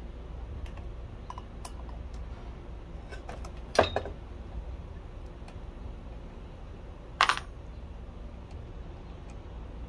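Light metallic clinks and taps from a hex key and a 7-1/4 inch carbide-tooth saw blade being handled while the blade is fitted onto a miter saw's arbor. Two sharper clinks stand out, about four seconds in and again about seven seconds in.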